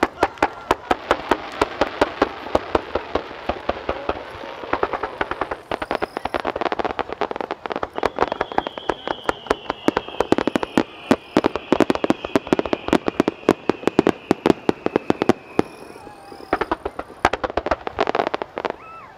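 Fireworks barrage: a rapid, dense series of aerial shell bursts and crackling bangs, several per second. Partway through, a long high whistle sounds for several seconds, slowly falling in pitch.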